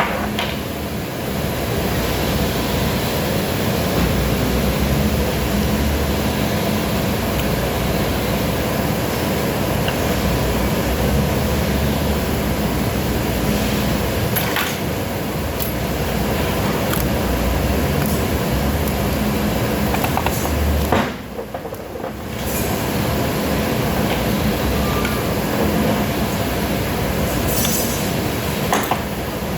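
Steady, loud mechanical running noise with a low hum and a few scattered clicks, dropping out briefly about two-thirds of the way through.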